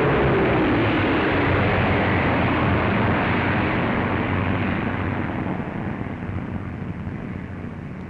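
A Bristol Blenheim bomber's twin Bristol Mercury radial engines running as it passes low overhead, the pitch dropping as it goes by, then fading over the last few seconds as it flies away.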